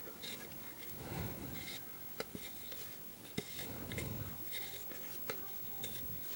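Hands tying knots in friendship-bracelet strings against a clipboard: soft rubbing and rustling of the strings and fingers, with a few sharp light clicks.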